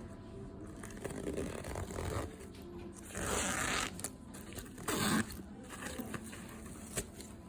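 A cat with a cold sneezing: two short hissing bursts, about three and five seconds in, the second one sharper.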